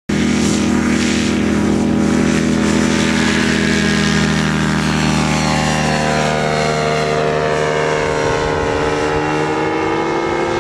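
The engine and propeller of a CGS Hawk single-seat ultralight aircraft in flight, flying past: a loud, steady engine drone whose pitch shifts slightly over the last few seconds.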